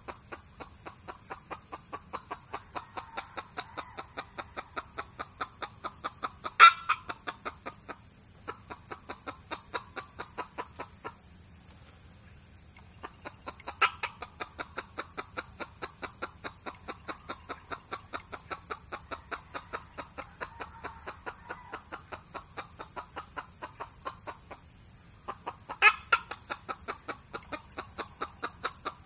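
Red junglefowl clucking steadily, about three clucks a second with a few short pauses, and three louder sharp notes: one about a quarter of the way in, one halfway, and one near the end.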